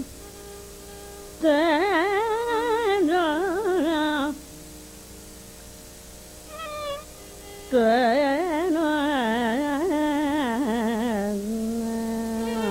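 Carnatic music: two long melodic phrases whose pitch sways and oscillates heavily in gamaka ornaments, with a brief phrase between them, over a faint steady drone. No drum strokes are heard.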